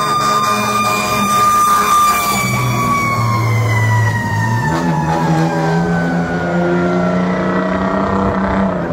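Fire engine siren holding a high steady pitch, then sliding down in a long falling glide over about six seconds as the truck passes, with the truck's engine running low beneath it.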